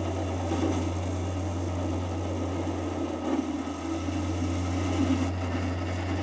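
Lathe running with a steady hum while a hand-held chisel scrapes fine chips off a spinning piece of hardened steel shaft. The cutting noise eases off briefly a little past halfway.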